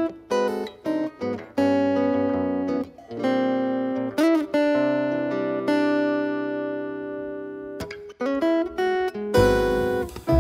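Larrivée steel-string acoustic guitar playing jazz chords and single-note lines, with one chord left ringing for a few seconds in the middle. Near the end a cymbal hiss and deep bass notes come in as the band joins.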